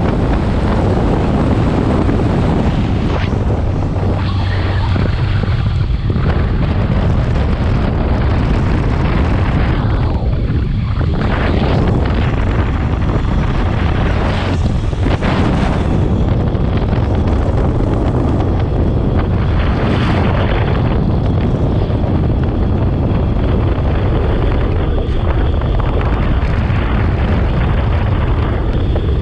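Loud, steady wind buffeting on the microphone of a moving motorcycle, with the bike's engine and road noise underneath.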